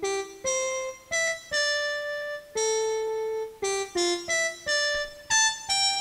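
Background music: a slow melody of single held notes played on a keyboard, one note after another about every half second to a second.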